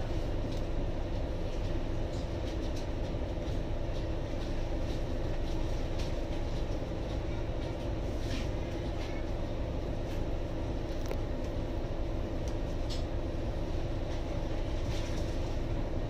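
Scania N280UD bus's compressed-biogas engine idling steadily, heard from inside the cabin while the bus stands at a stop, with a few faint ticks.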